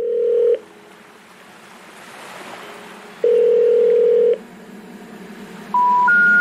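Telephone line tones: a steady ringback tone sounds twice, about three seconds apart, with a rising hiss between. Near the end come three short beeps, each higher than the last: the special information tone that signals a call cannot be completed.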